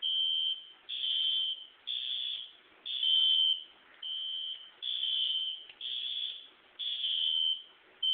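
System Sensor fire alarm horn sounding in repeated high-pitched blasts, about one a second, each a little over half a second long with near silence between.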